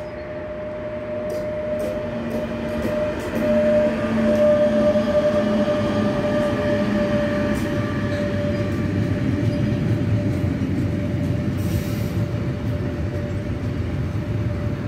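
Bombardier TRAXX F140 AC2 (class 185) electric locomotive approaching and passing with a freight train, with a steady humming tone over the rumble of its wheels, loudest about four to five seconds in. After the locomotive, the freight wagons roll past with a continuous rumble.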